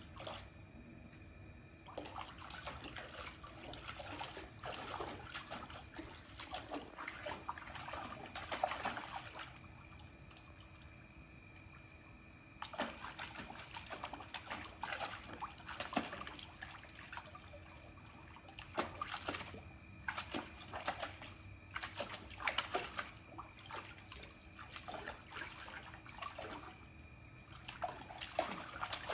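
A dog splashing at a swimming pool's water from the pool steps, in irregular bursts of splashing and sloshing, with a lull about ten seconds in.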